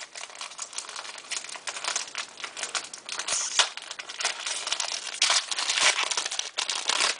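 Hockey card pack wrapper crinkling continuously as it is handled and opened.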